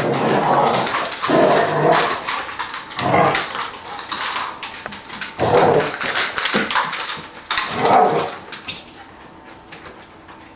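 Dogs growling and barking in rough play: an older dog growling objections at a husky puppy that keeps jumping on him. There is a string of short outbursts that die away about eight seconds in.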